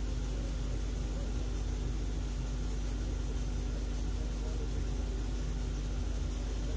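Woodworking machinery running steadily in the shop: a constant low hum with a steady mid-pitched tone over an even hiss.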